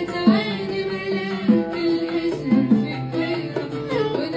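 A Gulf (Khaleeji) song played live on oud, violin and hand drums, with a boy's voice singing over the ornamented melody and steady drum strokes.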